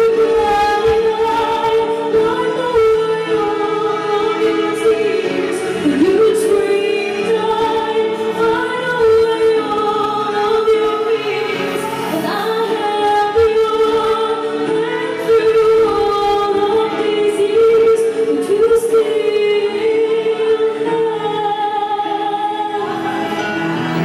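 A woman singing solo into a handheld microphone, with long held notes.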